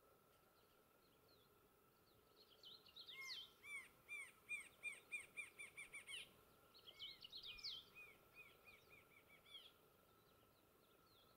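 Rufous-winged antshrike singing: two fast, accelerating series of repeated arched notes, the first starting about three seconds in and stopping abruptly about six seconds in, the second following about a second later and trailing off.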